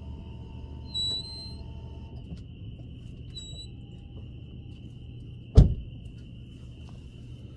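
A steady low hum under a constant thin high whine, with two short high chirps about a second and three and a half seconds in, then one loud, sharp thump about five and a half seconds in.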